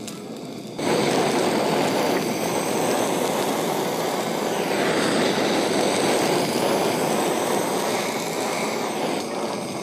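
Handheld kitchen gas burner (blowtorch) flame rushing steadily as it sears the skin of hairtail fillets. The sound starts suddenly about a second in and eases off near the end.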